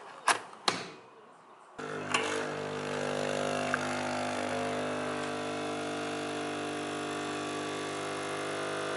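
Two clicks as the lid of a capsule espresso machine is pressed shut, then, about two seconds in, the machine's pump starts and runs with a steady humming drone while espresso pours into a glass of ice.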